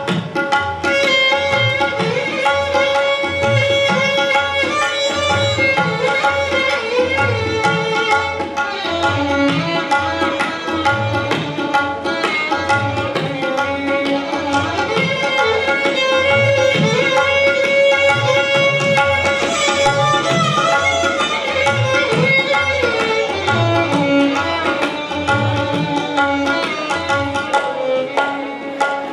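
Instrumental interlude of a Gujarati sung poem: a violin plays a melody that slides between notes, over a held harmonium drone and a steady hand-drum beat.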